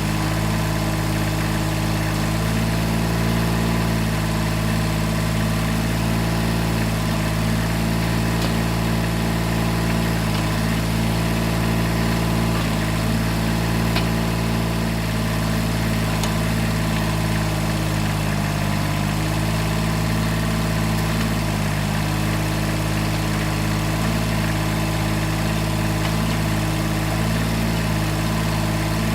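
A 1978 Kubota B6100E compact tractor's diesel engine runs steadily at under half throttle, driving the hydraulics of a three-point-mounted backhoe. The tone shifts slightly every few seconds.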